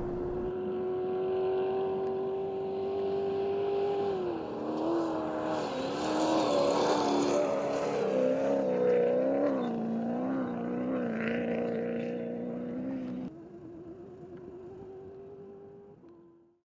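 A vehicle engine sound: a steady tone for a few seconds, then revved up and down several times. It drops away suddenly near the end, leaving a quieter rising tone that fades out.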